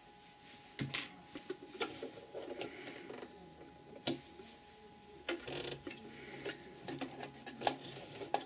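Domestic electric sewing machine stitching slowly, topstitching close to the edge: a faint motor hum that starts and stops in short runs, with scattered light clicks from the needle and fabric handling.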